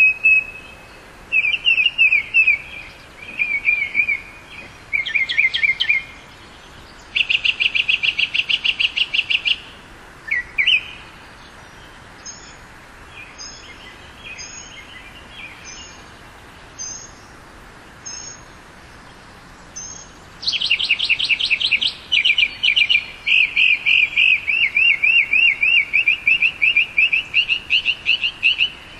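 Northern mockingbird singing: a string of different phrases, each note repeated quickly several times, with a quieter stretch of single high notes about a second apart in the middle and a long, fast run of repeated notes near the end.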